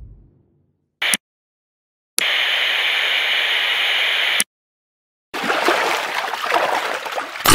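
Separate sound-effect clips cut in and out abruptly with silence between: a short blip about a second in, then a steady rushing hiss for about two seconds. After a pause, water runs and gurgles from about five and a half seconds in.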